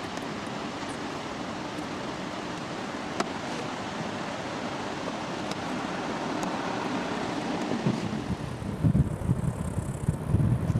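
Steady road and engine noise from a moving vehicle. From about eight seconds in, gusty wind buffets the microphone.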